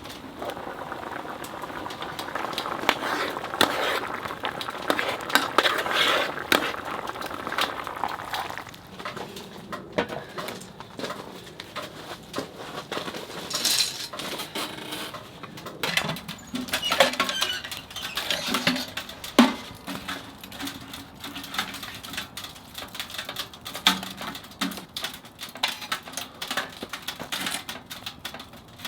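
Firewood crackling and popping in a wood-burning stove, with a pot of doenjang rice bubbling on top; a steady bubbling hiss for about the first eight seconds, then scattered sharp pops and a few clinks of cookware.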